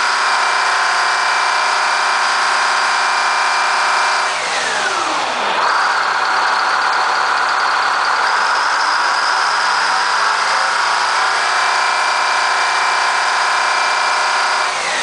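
Detroit Diesel 8V71 two-stroke V8 of a GM PD4106 bus running through the bus's original stock muffler. It is held at high revs, drops back to idle about five seconds in, then revs up again and holds before falling back near the end.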